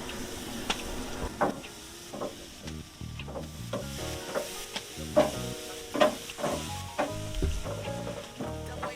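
Chicken sizzling as it is laid on the hot grate of a barbecue pit, with sharp metal clicks and clanks scattered throughout.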